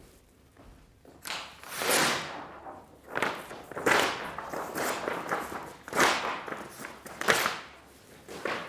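Large sheets of drawing paper being torn, shaken and crumpled by hand: a string of loud rustling, ripping swishes with short quieter gaps between them.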